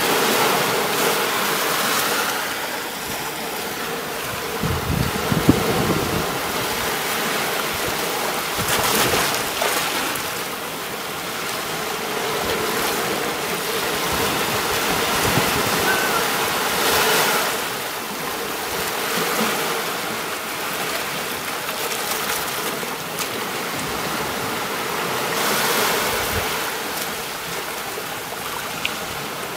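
Sea waves breaking and washing up a beach, swelling into a louder wash about every eight seconds.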